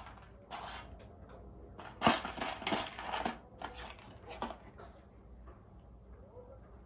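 Cat food puzzle toy being pawed and knocked about by a cat: a series of short clattering knocks and scrapes, loudest about two seconds in, thinning out after about four and a half seconds.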